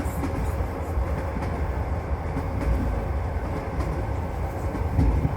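Passenger train running, its steel wheels rolling on the rails with a steady low rumble, heard from inside the carriage.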